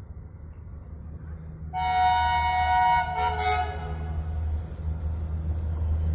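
Horn of a WDM3A ALCO diesel locomotive: a blast of about a second on two notes sounded together, then a short blast a little lower, over the low rumble of the approaching locomotive, which grows louder near the end.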